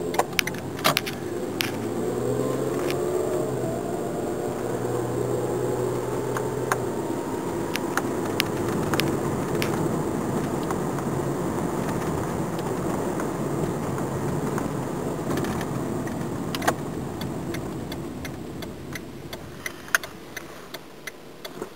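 Toyota Camry V6 engine running, its pitch rising over the first several seconds and then holding steady, easing off near the end. Scattered light clicks sound over it.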